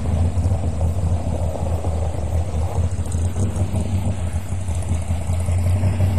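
Hot rod coupe's engine running steadily as the car drives off at low speed.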